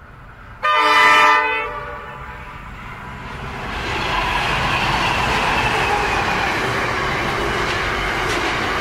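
Pacific National NR-class diesel-electric locomotives sound one short horn blast about a second in. The locomotives and their container wagons then pass close by with a steady rumble and wheel clatter.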